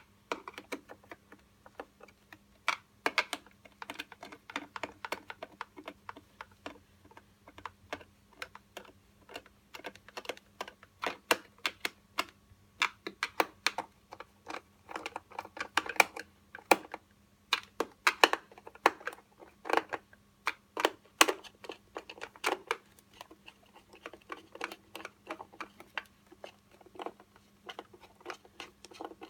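Screwdriver work on a hoverboard's plastic body shell: an irregular run of small clicks and taps as screws and the shell are handled, with a faint steady hum underneath.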